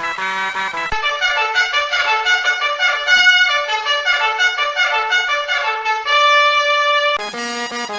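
Music: a brassy, trumpet-like melody of quick notes, spliced from short clips that cut abruptly to a different-sounding section about a second in and again near the end.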